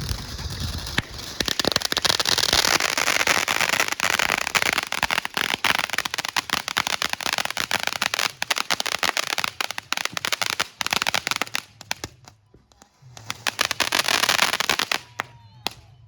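Consumer fireworks going off in a dense, rapid string of cracks and pops for about ten seconds. After a brief lull there is a second fast burst of crackling lasting a couple of seconds, and a single crack near the end.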